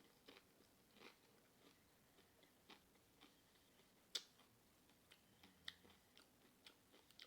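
Faint close-up chewing of Doritos nachos: scattered soft crunches and wet mouth clicks, the sharpest crunch about four seconds in.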